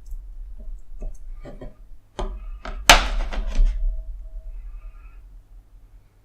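Small hardware being handled on a work surface: a few light clicks, then a louder clack about three seconds in with a brief rattle after it.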